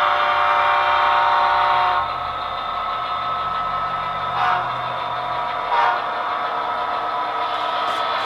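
Model locomotive sound decoder playing a diesel horn chord until about two seconds in, then the SD70ACe's engine sound running steadily through the model's small speaker, with two short louder blips.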